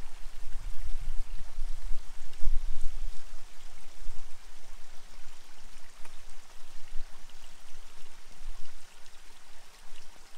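Stream water rushing steadily, with low rumbling bumps that are heaviest in the first four seconds or so.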